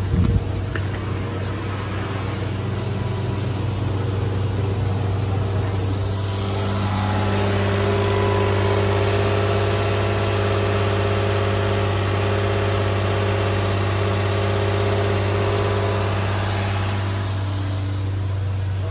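A 2007 Nissan Altima's 3.5-litre V6 idling steadily at an even pitch. From about six seconds to seventeen seconds, close to the open engine bay, a loud hiss and whir come in over the hum. There is a brief knock at the very start.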